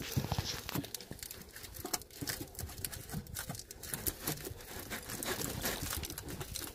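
Irregular crinkling, rustling and scraping as gloved hands work inside a vehicle's wheel well, handling a plastic-wrapped package hidden behind the tyre, with scattered small clicks.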